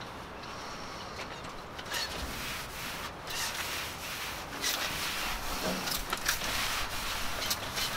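A rag rubbing over the bare sheet-metal walls of a trailer interior, wiping the surface down to prep it for epoxy primer. Irregular scrubbing strokes that get more frequent and louder after the first couple of seconds.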